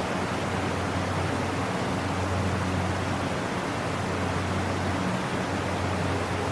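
Creek waterfall: water pouring and splashing in a steady, unbroken rush, with a low hum underneath.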